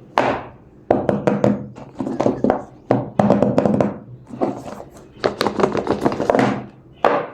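Handling noise from a smartphone box being opened: repeated sharp taps and knocks with rustling of cardboard and packaging.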